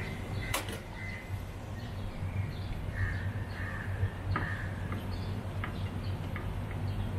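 Hand work on an air conditioner outdoor unit's pipe connections: scattered light clicks and taps, and a few short squeaks about the first second and again between three and four seconds in, over a steady low rumble.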